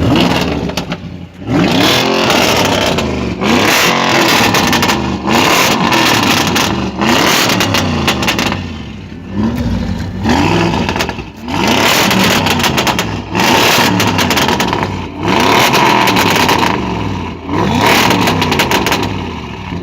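Audi RS6 with an Akrapovic exhaust revved repeatedly, about ten blips of the throttle one after another, each rev rising in pitch and falling back, with pops and crackles from the exhaust as it drops.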